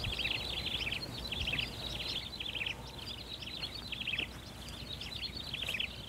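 Birds twittering in a dense chorus of quick, short high notes in rapid phrases, one after another, over a faint low hum of outdoor noise.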